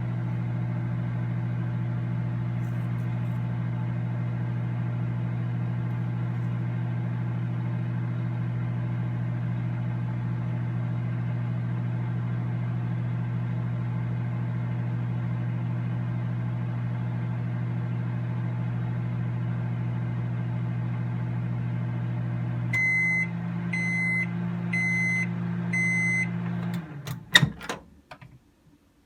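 Microwave oven running with a steady low hum. Late on the hum shifts as the cycle ends, and four short high beeps about a second apart signal that it is done. A few sharp clicks follow near the end.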